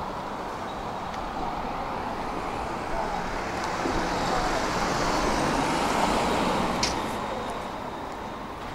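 Street traffic noise, with a motor vehicle passing: the sound swells over the middle few seconds and then fades, with a short sharp click near the end.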